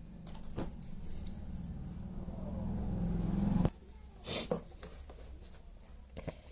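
Low mains hum from the powered amplifier board's supply. It grows louder for over three seconds and then cuts off suddenly, as if the power were switched off. A few clicks and knocks of handling follow.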